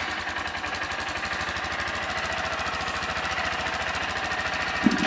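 Honda CG 160 Fan's single-cylinder four-stroke engine idling steadily just after starting, in an even rapid pulse. A washer is wedged in the exhaust tip and the air filter is off.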